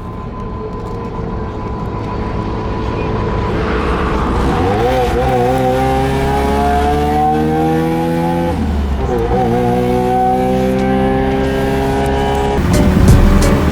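Mazda RX-7 FC's rotary engine accelerating hard: its pitch climbs through one gear, drops at a shift about nine seconds in, then climbs again. A louder, rougher burst of noise comes near the end.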